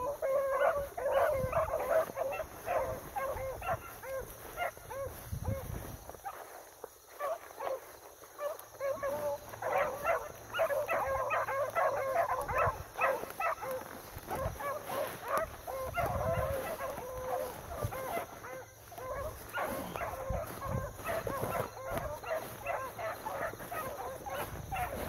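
Beagles baying on a running trail, a steady stream of short, overlapping cries, easing off briefly about a quarter of the way in before picking up again.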